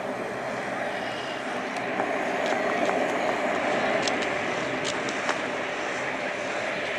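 Steady drone of a Bombardier Dash 8 Q400's twin turboprop engines as the airliner taxis, with a few short faint clicks.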